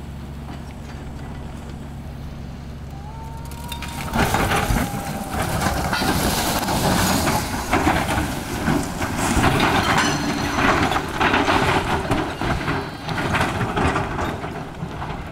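Heavy construction machine's engine running with a steady low hum, then from about four seconds in a much louder, ragged noise full of knocks and grinding.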